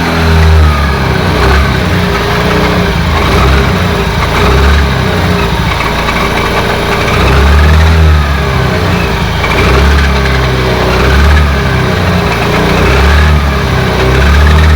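Honda Activa 125 scooter engine running while the throttle is opened and closed several times, the revs rising and falling, with a grinding growl ("kharkhar") from inside the gearbox. The mechanic traces the noise to cut teeth on the gearbox pinion after its bearings were replaced.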